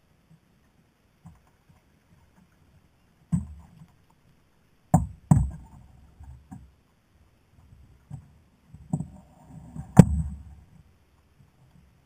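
Several sharp knocks and thumps on a plastic fishing kayak's hull as the rod and gear are handled, scattered irregularly, the loudest about ten seconds in.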